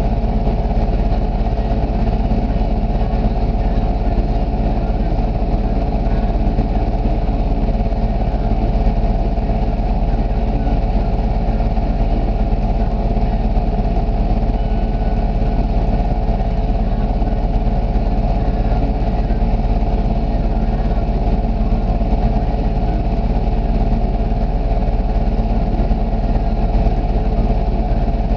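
ATV engine idling steadily at a constant speed.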